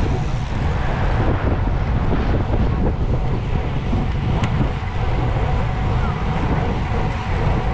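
Wind buffeting the microphone of a bicycle-mounted camera during a group road ride, a steady low rumble mixed with tyre and road noise. A single light click about four and a half seconds in.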